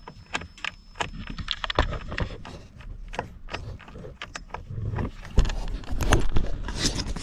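A hand screwdriver turning a screw into a plastic steering-column trim cover, with irregular small clicks and rattles. Louder handling knocks come near the end.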